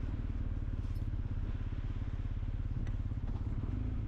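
KTM Duke 390's single-cylinder engine running at low revs, a steady rapid low pulsing.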